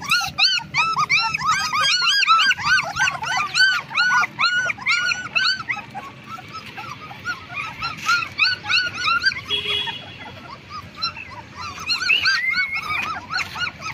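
Several 20-day-old black German shepherd puppies whimpering and squealing: rapid, overlapping high-pitched cries that each rise and fall in pitch, easing off for a couple of seconds in the middle before picking up again.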